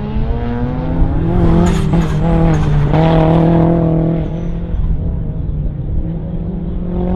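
A car engine revving hard as it is driven through an autocross cone course, its pitch rising and falling with throttle changes. It holds steady revs for about a second, then eases off. The tyres squeal briefly through a turn about two seconds in.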